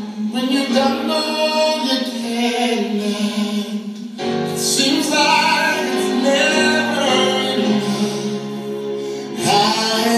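Gospel music with singing voices over a steady instrumental backing.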